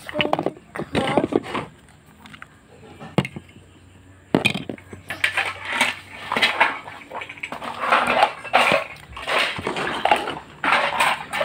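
Plastic toy pots, pans and utensils clattering and knocking together as a child plays with them. After a lull of about two seconds, busy clattering starts about four seconds in.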